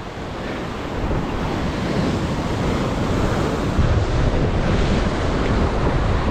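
Ocean surf breaking and washing over a rock ledge, with wind buffeting the microphone. It gets louder about a second in, and a heavier low wind rumble sets in at about four seconds.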